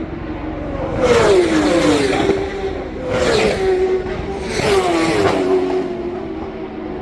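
Racing motorcycles going past at high speed one after another, three in turn, each engine note falling in pitch as it passes, over a steady engine note underneath.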